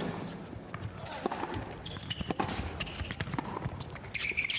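Tennis ball knocks: a ball bouncing on the court and being struck by rackets, a series of sharp irregular thuds, with short shoe squeaks on the court near the end.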